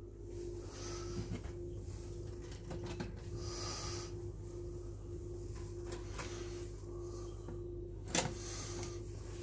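Light handling sounds as slices of bread are carried to and put into a two-slice electric toaster, with one sharp click at the toaster about eight seconds in. A faint steady hum that pulses runs underneath.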